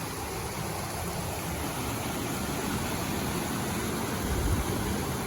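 Steady rushing noise of a fast-flowing river and waterfalls, an even roar with no breaks.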